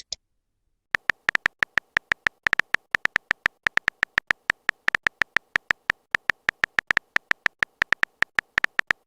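Rapid, irregular typing clicks, a sound effect for text being typed out letter by letter. They start about a second in and run at several clicks a second.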